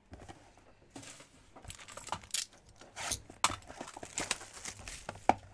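Crinkling and rustling of Panini Contenders Optic trading card packaging being handled and opened, heard as a run of irregular crackles and clicks with a sharper snap near the end.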